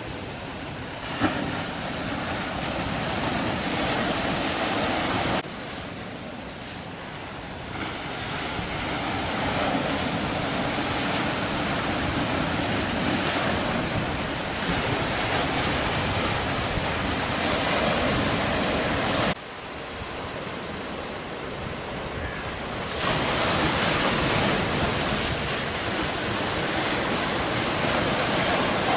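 Sea surf breaking and washing over rocks: a continuous rushing roar that swells and ebbs. It drops suddenly in level about five and nineteen seconds in, and there is a brief click about a second in.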